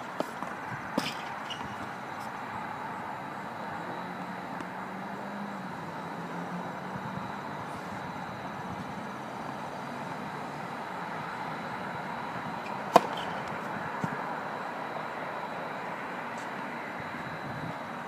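Steady outdoor background noise broken by the sharp pops of a tennis ball off racket strings and court: a couple of light ones about a second in, then one loud pop about 13 seconds in and a softer one a second after it.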